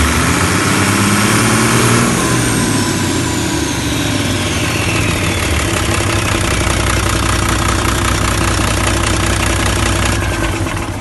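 Doosan Daewoo DE08TIS turbocharged straight-six diesel engine running at raised revs, then dropping back to idle about two seconds in, its high turbo whine winding slowly down. It idles steadily after that, and near the end it is switched off and begins to run down.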